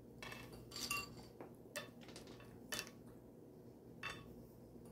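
Light clinks of a utensil against a plate or serving dish, about four of them spaced roughly a second apart, as peanuts are added around the papaya salad.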